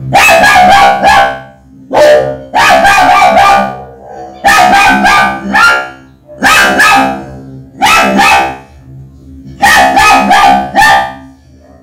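Dog barks run through a robotic electronic voice effect, coming in quick clusters of three or four barks about every two seconds, six clusters in all.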